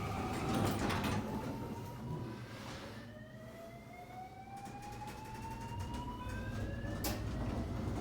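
A slowly rising whine, each sweep climbing in pitch for several seconds before starting again lower, about six seconds in.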